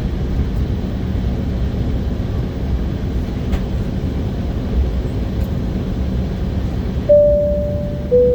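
Steady low rumble of an Embraer 190 jet's engines and airframe heard from inside the passenger cabin. Near the end a two-note cabin chime sounds, a high note followed by a lower one that fades.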